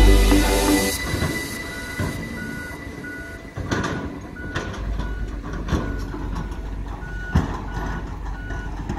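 Background music fades out in the first second. Then a construction vehicle's reversing alarm beeps steadily, about twice a second, over a heavy engine running, with a few sharp knocks in between.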